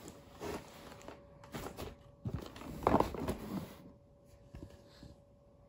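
Large cardboard toy box being handled and turned over: scattered scrapes, taps and rustles, the loudest about three seconds in, dying away after about four seconds.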